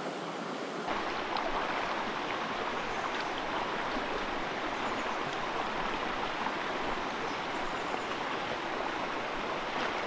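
Shallow river flowing, a steady rush of water that grows fuller about a second in.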